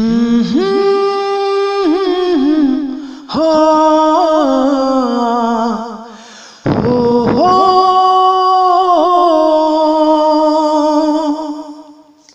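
A singing voice holding three long, drawn-out phrases of a Nagpuri song, sliding between sustained notes, with short breaks between the phrases and no drum beat.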